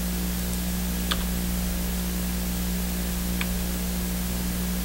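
Steady electrical hum and hiss of the recording's noise floor, with two faint short clicks, one about a second in and one past the three-second mark.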